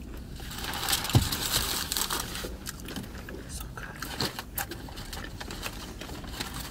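Close-miked chewing of a crunchy potato-coated corn dog: irregular crackling crunches and mouth clicks, with a louder burst of crackling about a second in.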